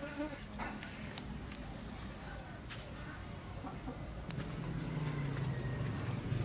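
Outdoor village ambience with hens clucking. About four seconds in, a sharp click comes and a low steady hum sets in and carries on to the end.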